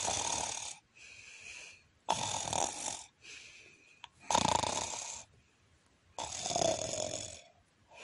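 Snoring: four loud rasping snores about two seconds apart, each followed by a softer breathy exhale.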